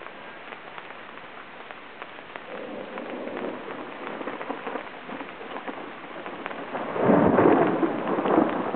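Steady rain falling in a thunderstorm, with drops ticking on the tent canopy overhead. Thunder rumbles in from about two and a half seconds in, then breaks much louder about seven seconds in and keeps rolling.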